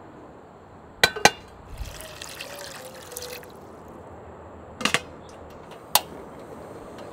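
Two sharp clinks of cookware, then water poured into a pot for a second or two. Near the end come a clink of the pot lid and a single sharp click from a portable butane stove's igniter knob being turned.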